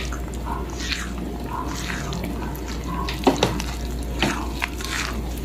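Silicone spatula stirring glutinous rice flour and coconut cream in a glass bowl: irregular wet swishing scrapes, with a few sharp taps of the spatula against the glass around the middle.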